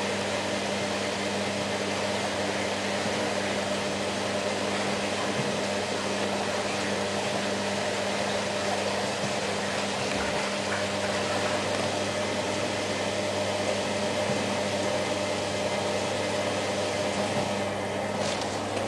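Hoover Ökologic WA1000 De Luxe washing machine running: a steady motor hum over an even whirring noise, with a few clicks near the end.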